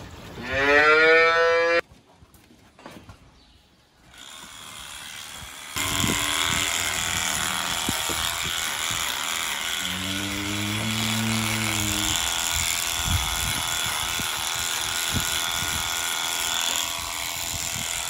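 A calf bawls once at the start, a loud rising call. Then a cordless DeLaval electric clipper runs steadily as it clips the hair of a cow's tail switch, and a cow gives one low moo partway through.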